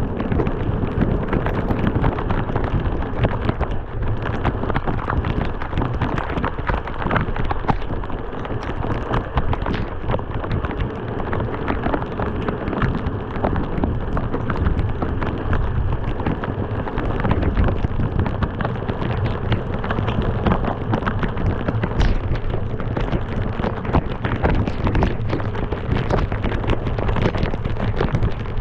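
Heavy rain hitting a moving car: a dense clatter of drops over a steady low rumble of road and wind noise.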